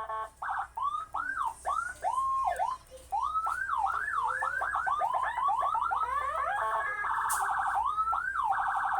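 24-tone 8-pin electronic siren kit being tested, cycling through its siren tones. Short rising and falling whoops quicken into a fast warble, then give way to a rapid stuttering pulse near the end.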